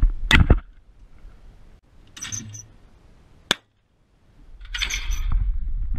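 A shotgun fires a single shot about a third of a second in. A much fainter sharp click comes about three and a half seconds in.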